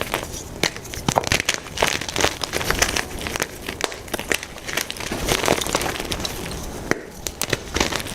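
Blocks of white gym chalk being crushed and crumbled, a dense run of irregular crisp crunches and snaps, easing briefly near the end.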